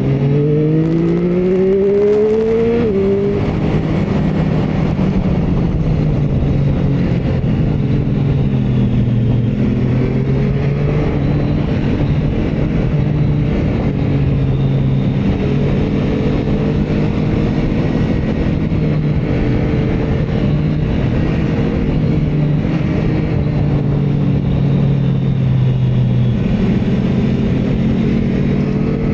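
Motorcycle engine on a ride: it accelerates with a rising pitch for the first three seconds, drops sharply on an upshift, then runs at a fairly steady speed with small rises and falls in pitch.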